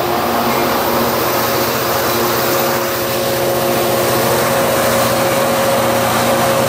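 Diesel passenger locomotive's engine running steadily close by, a constant droning hum with several held pitches.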